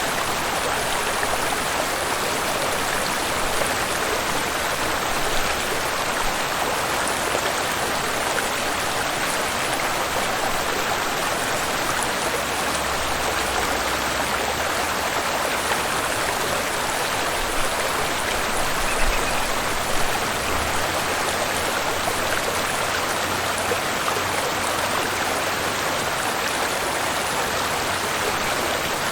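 Waterfall and flowing river water rushing steadily, with a few faint low thumps about two-thirds of the way in.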